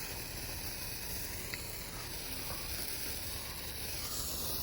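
Cutting Edge Morning Glory hand-held firework burning, giving off a steady hiss of spraying sparks.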